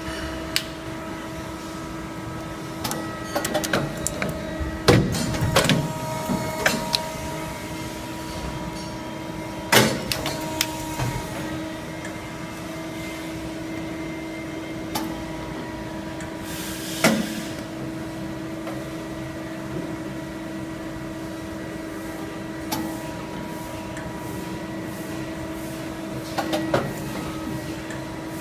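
Shoe toe lasting machine running: a steady motor hum broken by sharp mechanical clunks and clicks as it cycles, with a short hiss about sixteen seconds in.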